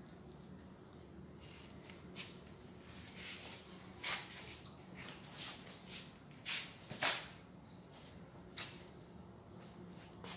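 Faint, irregular scuffs and rustles of footsteps shuffling across a tiled floor, over a steady low hum.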